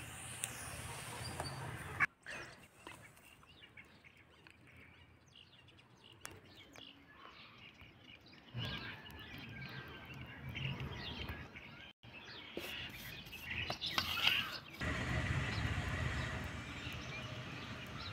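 Small birds chirping and tweeting over a low, steady background noise that changes abruptly a few times.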